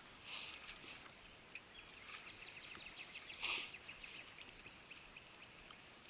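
Faint outdoor background with small high chirps, likely birds, and a few short rustles, the loudest about three and a half seconds in.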